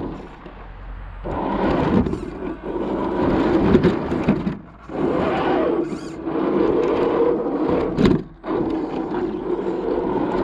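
Axial SCX10 II 1/10-scale RC crawler's electric motor and gearbox running in spells as it drives. The running cuts out briefly about halfway through and again near the end, just after a sharp knock.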